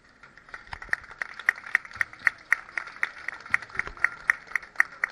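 Audience applauding, building up about half a second in. One pair of hands louder than the rest claps evenly at about four claps a second.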